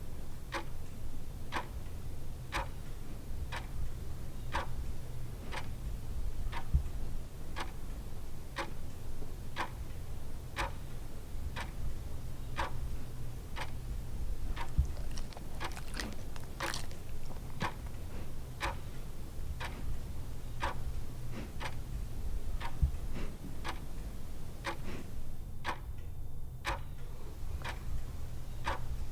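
A sleeping Labradoodle snoring, a steady low rumble, with a sharp tick about once a second over it.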